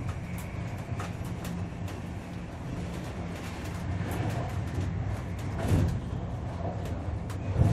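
Ride aboard a German ICE high-speed train: the steady low rumble of the train running, with scattered light knocks and rattles, a louder thump near the end.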